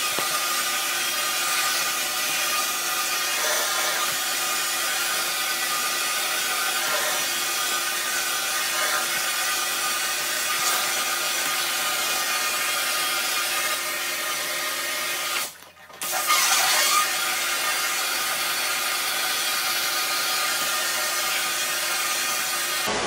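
Wet blasting cabinet at work: the blast gun spraying a slurry of fine glass bead and aluminum oxide onto a machined 6061 aluminum part, a steady hiss with a faint hum beneath. About two-thirds through, the spray cuts out for a moment and comes back in a louder burst before settling again.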